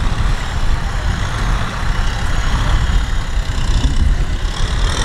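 Kubota M6040SU tractor's diesel engine running steadily under load, with a low pulsing rumble, as the tractor pulls a rear cultivator through deep mud.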